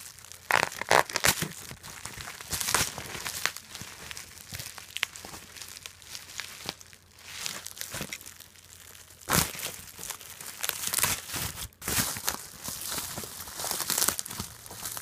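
Packing material being handled while a cuckoo clock is unpacked: paper or plastic wrapping crinkling and rustling in irregular bursts, with scattered crackles and small knocks.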